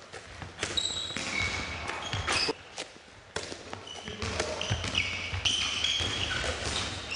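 Handball players' shoes squeaking sharply on a sports-hall floor as they cut and block, with a handball bouncing and thudding in between, echoing in the large hall.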